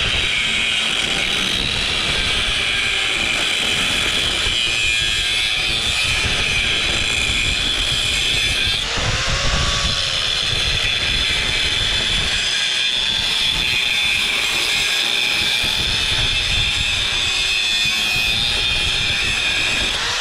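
Angle grinder running steadily under load, grinding through the welded seams of a lighting ballast's steel case to split it open for the copper inside. Its pitch wavers as the disc is worked along the weld, with a brief change about nine seconds in.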